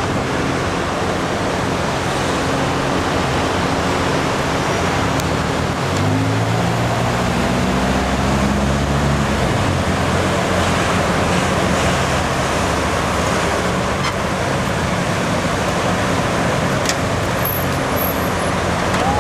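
Road traffic on a busy street: a steady wash of passing cars, with one vehicle's engine passing close by from about six to ten seconds in, its pitch rising and then dropping away.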